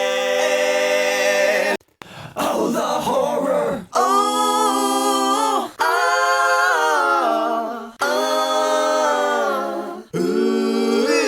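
Wordless a cappella vocals, several voices layered into held chords of sung and hummed notes that change pitch, each cut off briefly about every two seconds, with a rougher, noisier vocal stretch about two to four seconds in.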